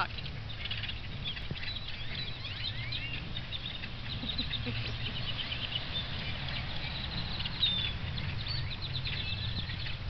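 A large flock of blackbirds calling all at once: a dense, overlapping chatter of short chirps and whistles, over a low steady background rumble.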